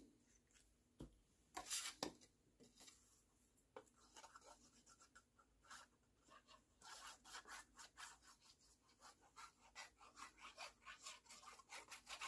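Faint rubbing strokes of a Gina K Connect glue pen's tip drawn across cardstock, in a quick run of short strokes through the second half. There are a few light knocks of paper being handled near the start.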